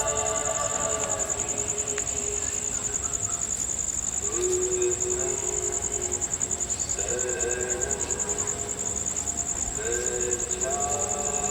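Crickets chirring in a steady, rapidly pulsing high trill, over group chanting in long held tones that break off and resume every second or two.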